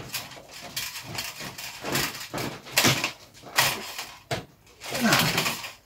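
Screwdriver working the terminal screws on a fluorescent light fitting's connector block, retightening the wire contacts: a series of short, irregular scrapes and clicks of metal and wire.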